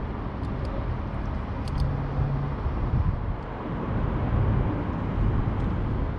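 Steady low outdoor background rumble, with a few faint light clicks in the first two seconds as wire spade connectors are worked onto the new run capacitor's terminals.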